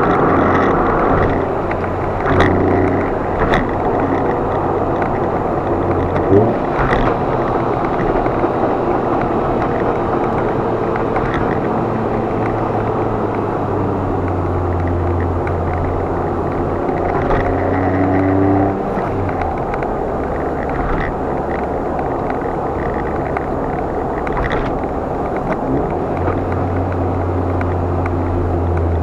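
A car being driven, with steady engine and road noise whose low hum changes pitch and level a few times, as with gear changes or shifts in engine load. A few short clicks come and go.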